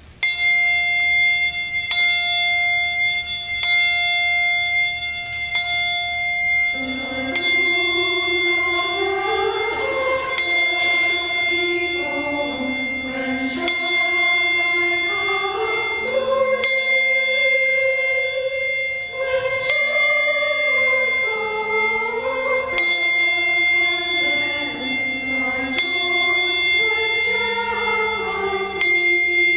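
Church choir singing with piano accompaniment. A bell-like high chord is struck about once a second from the start, and the voices come in about seven seconds in and carry on over it.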